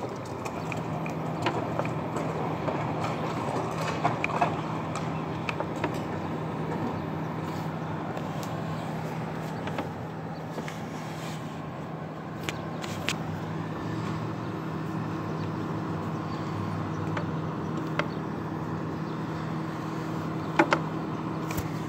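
A motor vehicle's engine running steadily with a low, even hum, and a few scattered clicks and knocks.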